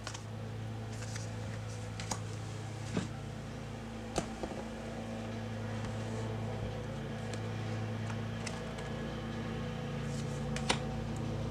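Steady low electrical hum from a fan or appliance, with a few short clicks and taps from tarot cards being handled and laid down. The sharpest click comes near the end.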